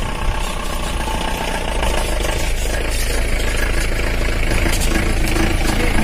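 An SUV's engine running slowly, growing louder near the end as it comes close on a rough boulder track.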